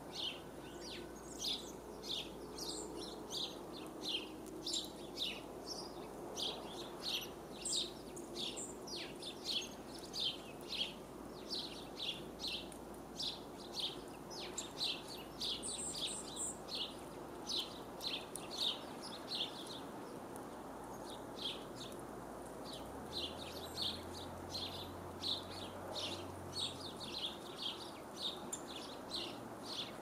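A small songbird chirping over and over, short falling chirps at about two a second with a brief pause past the middle, over a faint low background rumble.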